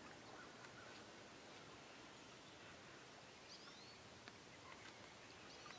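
Near silence: faint outdoor ambience with an even hiss and a couple of faint bird chirps, about three and a half seconds in and again near the end.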